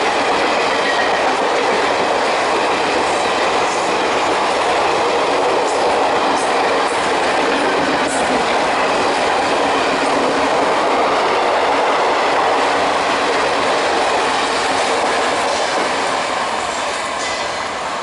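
Express train coaches passing close at speed: a loud, steady rush of wheel and rail noise with occasional sharp clacks. It fades near the end as the train draws away.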